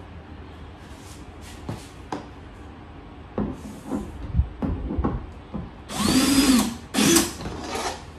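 Cordless drill-driver driving a screw into a flat-pack cabinet panel: one run of about a second, its motor pitch rising and falling, then a short second burst. Before it, a series of knocks and clatter from the panels being handled.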